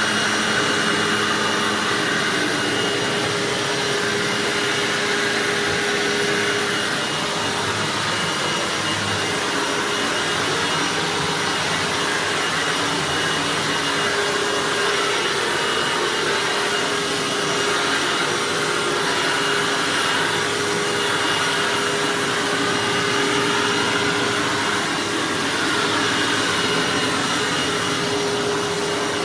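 Hoover WindTunnel self-propelled bagged upright vacuum cleaner running steadily on carpet: a rush of air with a constant hum and a faint thin high whine.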